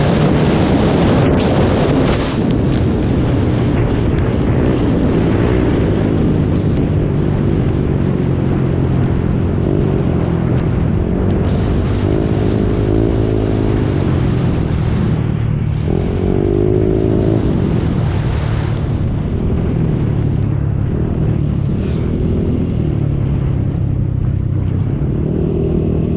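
Motorcycle engine running while riding, its pitch rising and falling a few times, under heavy wind noise on the microphone.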